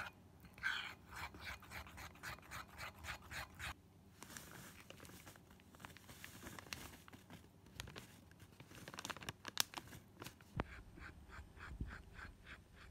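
A metal spoon stirring batter in a ceramic bowl, scraping in a quick, even rhythm. About four seconds in, the stirring gives way to a soft rustle as flour is tipped in from a plastic bag, followed by a few light clicks. Stirring resumes near the end.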